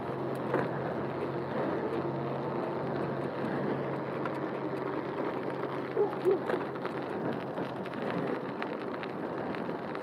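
Bicycle riding along a paved trail: steady rolling and wind noise, with two short, louder sounds about six seconds in.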